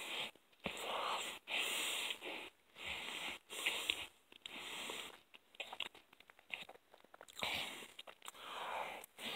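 Heavy breathing through the nose close to the microphone while chewing a mouthful of hamburger, with breaths coming in irregular runs and short wet mouth clicks and smacks between them.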